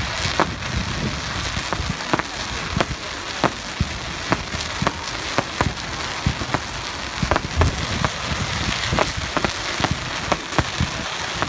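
Fireworks display: an irregular run of sharp firework bangs, about two a second, over a steady background hiss.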